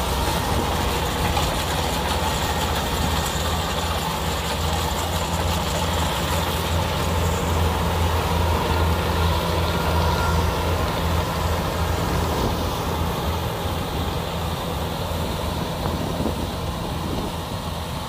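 Kubota DC-60 rice combine harvester running as it cuts and threshes: a steady engine and machinery drone with a deep, even hum underneath.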